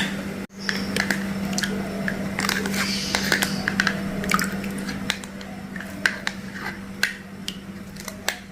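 A boiled herbal decoction being strained: liquid trickling and dripping through a small strainer, with light taps and clinks of utensils, over a steady low hum.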